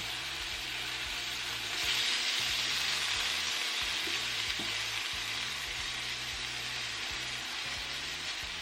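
Pieces of white poultry meat sizzling in olive oil in a frying pan, browning. A steady frying hiss that swells a little about two seconds in.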